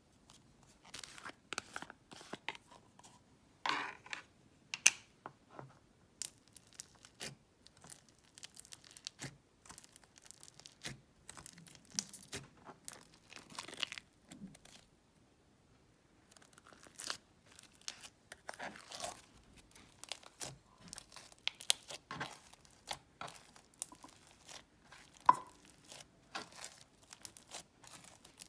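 Dense floam, slime packed with foam beads, being pulled and squished by hand: sticky tearing and crunching with crackling pops as the beads press together. It comes in irregular bunches, with a short pause a little past halfway.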